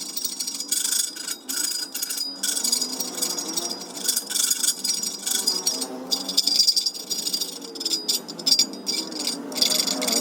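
Metalworking noise: rough, rattling scraping in uneven strokes with brief breaks, over faint background music.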